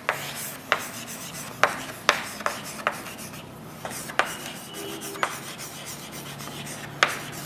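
Handwriting on a writing surface: soft scratchy strokes with a dozen or so irregular sharp taps as each stroke starts and lifts.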